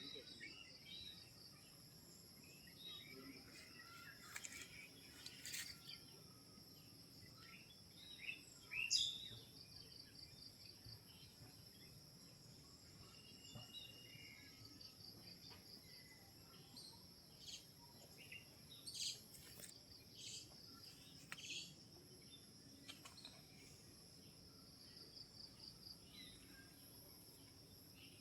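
Woodland ambience: a steady high insect trill under scattered short bird chirps, the loudest chirp about nine seconds in.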